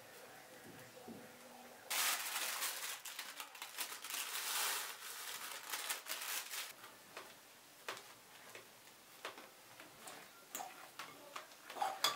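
Paper crinkling as grated chocolate is tipped off it into a glass bowl of ice cream, for about five seconds. Then come scattered light clicks of a metal spoon against the glass bowl as the ice cream is stirred.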